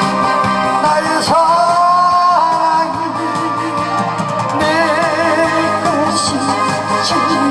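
A man singing a Korean song into a microphone over instrumental accompaniment. About a second in he holds a long note with vibrato.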